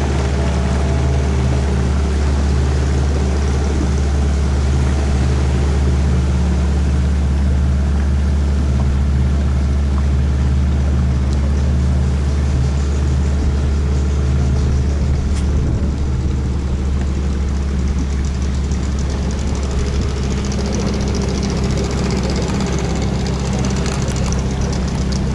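Small river boat's engine running steadily under way, a constant low drone.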